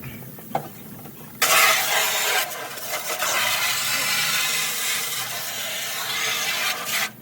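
Water spraying hard from a hose nozzle, rinsing off a fridge part: a steady loud hiss that starts suddenly about a second and a half in and cuts off just before the end.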